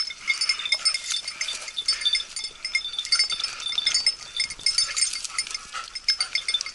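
Small metal bells on working bird dogs jingling irregularly as the dogs search through scrub, in quick, uneven strikes at the same few ringing pitches.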